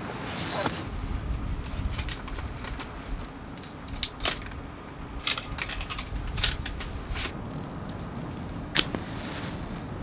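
A scattering of small, sharp clicks and taps from objects being handled at a table, over a steady low rumble of wind.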